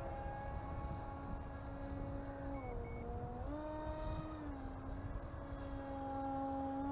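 Radio-controlled model plane's motor whining at a steady pitch that drops briefly about two and a half seconds in, then rises again as the throttle changes. Wind rumbles on the microphone.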